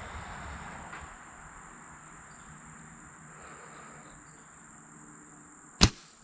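Steady high-pitched trill of crickets, and near the end one sharp crack as a compound bow is shot and releases an arrow.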